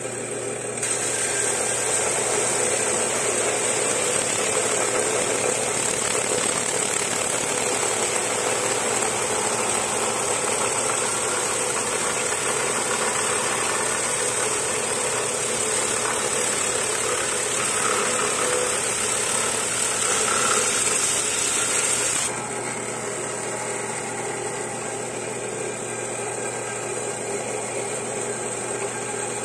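Small lapidary saw's motor running steadily while a quartz crystal is pressed into the blade: a hissing cut starts about a second in and stops abruptly several seconds before the end, leaving the motor running on its own.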